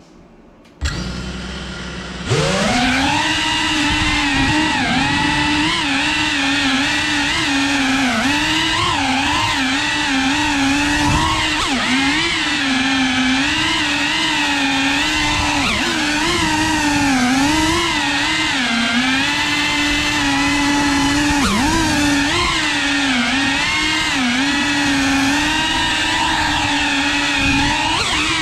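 3.5-inch cinewhoop FPV quadcopter's motors and ducted propellers: they spin up about a second in, then rise to a loud, steady whine about two seconds in as the drone lifts off. The whine's pitch dips and rises continually with throttle changes through the flight.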